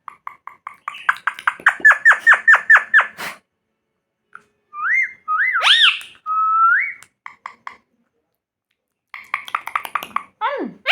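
Pet parrot whistling: a quick run of short whistled notes for about three seconds, then a few rising and falling whistles in the middle, and sweeping chirpy calls starting again near the end.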